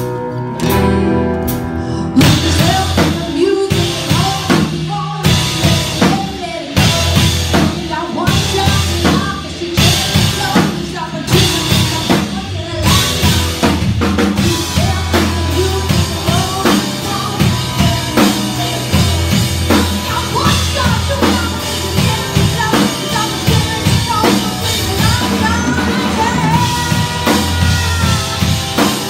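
Live pop-rock band: a clean electric guitar plays alone for about two seconds, then the drum kit and bass come in and the full band plays, with a woman singing lead.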